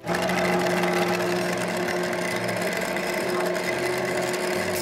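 Play@Home toy blender running after its On button is pressed: its small battery motor gives a steady whirring hum, with a rattle of the loose plastic beads spinning in its base. It starts suddenly as the button goes down.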